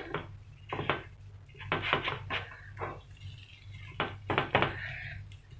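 A metal spoon clinks and scrapes against a paniyaram pan as kuzhi paniyaram are turned over one by one in their hollows: a string of irregular sharp taps, with a steady low hum underneath.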